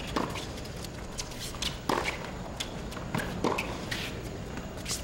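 Tennis rally: a ball struck back and forth by rackets and bouncing on a hard court, sharp short pops every half second to a second over a steady low background.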